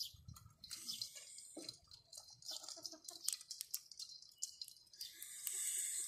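Raw baby crab shells being broken apart by hand and chewed: a run of small, sharp cracks and crunches, with a longer hiss near the end.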